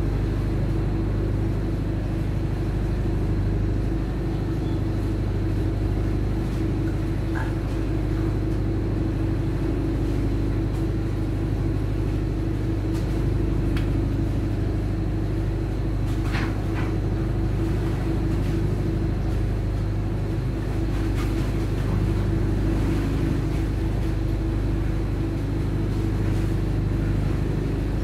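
Ship's engine running with a steady low drone and an even hum.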